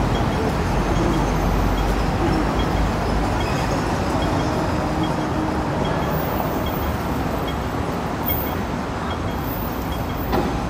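Steady low rumble of urban background noise, with a faint, evenly spaced high tick above it.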